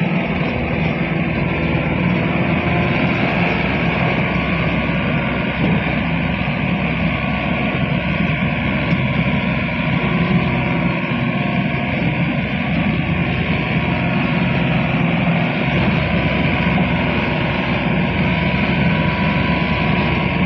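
Sonalika DI 745 tractor's diesel engine running steadily under load as it hauls a heavily loaded trailer of soil.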